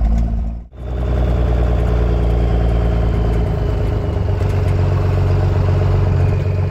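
Truck engine running steadily, heard from inside the cab while driving slowly across a field. The sound cuts out for an instant less than a second in, then carries on.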